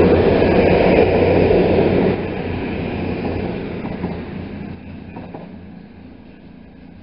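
CrossCountry Class 220 Voyager diesel multiple unit pulling away, its underfloor diesel engines humming steadily with a few wheel clicks over the track. The sound fades steadily from about two seconds in as the train draws off.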